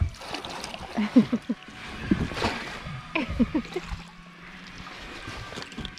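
Water splashing and the landing net knocking against the boat's side as a walleye is netted, with short wordless exclamations. A faint steady hum runs for a couple of seconds midway.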